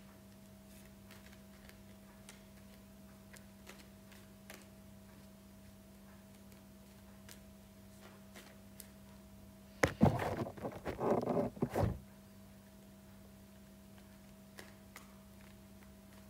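A deck of cards being shuffled by hand: faint scattered clicks of the cards, then a louder rustling flurry lasting about two seconds, about ten seconds in. A steady low hum runs underneath.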